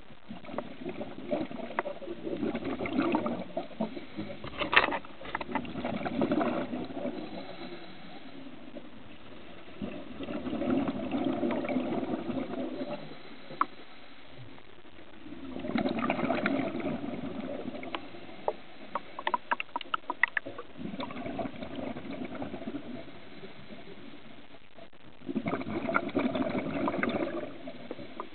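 Scuba regulator exhalations heard underwater: a gurgling rush of bubbles every four to five seconds, about six breaths in all, each with a crackle of popping bubbles, and a softer hiss between them.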